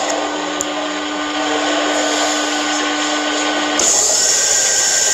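Click of the push-button starter, then a steady electrical hum; about four seconds in, a three-phase slip ring induction motor starts with a sudden louder rushing noise and a whine that rises briefly and settles as it runs up to speed.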